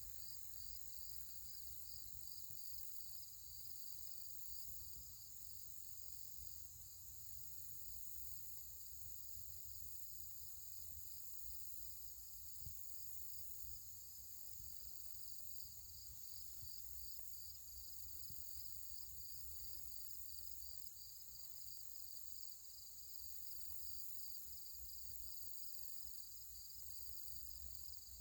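Insects chirping outdoors: a steady high-pitched drone with an even, rhythmic chirp repeating a few times a second, over a faint low rumble.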